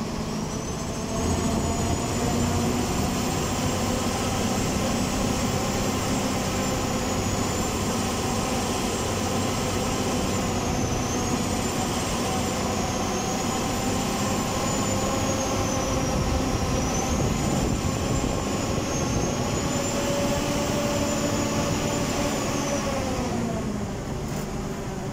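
Vehicle engine running with road noise while driving at a steady speed; the engine note drops as the vehicle slows near the end.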